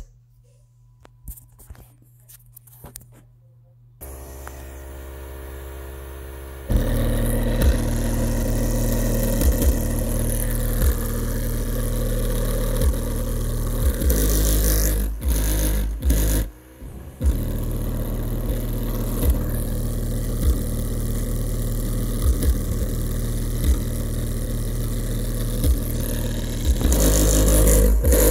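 Home-built 3-inch miniature rotary subwoofer, a small motor spinning a fan-bladed hub, being tested in a cardboard box. After a quiet start it begins to hum, and about seven seconds in it puts out loud, deep bass with repeated low thumps, cutting out briefly about halfway through.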